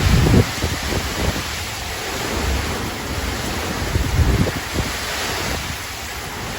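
Storm wind gusting hard against the microphone: a steady rushing hiss with low rumbling buffets, strongest near the start and again about four seconds in.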